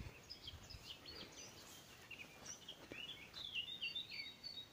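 Small birds chirping faintly. From about three seconds in, one bird repeats a quick, even series of short high notes.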